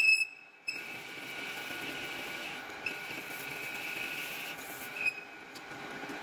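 Metal lathe cutting, with a steady high-pitched whine from the tool on the work. It opens with a brief sharp squeal, drops out for a moment, then runs on with a few light clicks.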